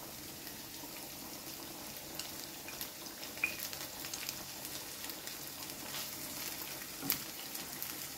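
Chopped onions and flaked canned tuna sizzling in olive oil in a frying pan, a steady hiss with scattered crackles. A wooden spoon gives a few light knocks against the pan, the clearest about seven seconds in.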